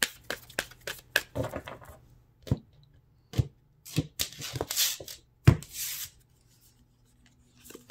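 A Spirit Animal Oracle card deck being shuffled by hand, a quick run of card flicks, then cards dealt onto a wooden table with several sharp taps and short sliding swishes.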